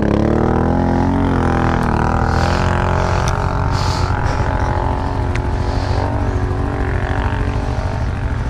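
ATV engine running hard at high revs under heavy throttle on a steep climb, its pitch holding high and wavering slightly as the load changes.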